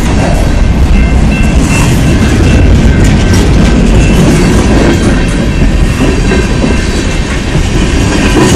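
BNSF freight train's cars rolling past, a steady loud rumble of wheels on rail.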